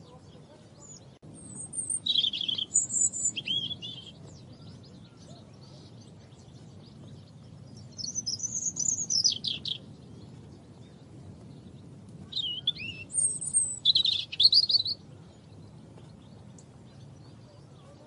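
European robin singing: three short, high, quickly varying warbled phrases separated by pauses of a few seconds.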